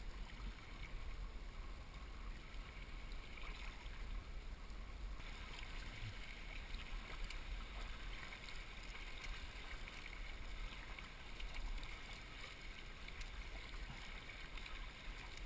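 Water lapping and swishing steadily along the hull of a sea kayak being paddled through the sea.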